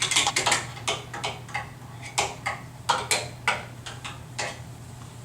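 Irregular clicks and taps of plastic toy screwdrivers being worked against things, quick and close together at first, then sparser and fading out after about four seconds.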